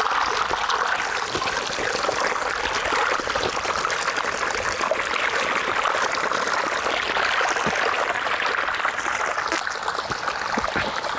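Water gushing steadily from a motor pump's outlet pipe into a shallow earth channel, with splashing as hands scoop and rinse in the stream.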